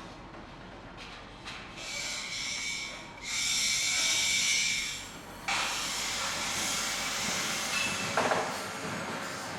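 Hissing noise: a short burst about two seconds in, a louder one from about three to five seconds, then a steady hiss from about five and a half seconds on, with a brief knock near eight seconds.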